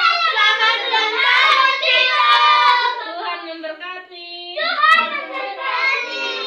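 A group of children and adults singing together, with a few hand claps; the singing dips briefly about three seconds in.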